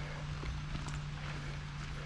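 Hikers' footsteps going downhill on a mountain trail: uneven clicks and scuffs of steps, over a steady low hum.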